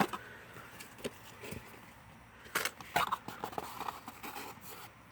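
Plastic bags of LEGO pieces being handled and set down: a few short clicks and rattles of the pieces, the sharpest about two and a half and three seconds in, with light crinkling of the bags.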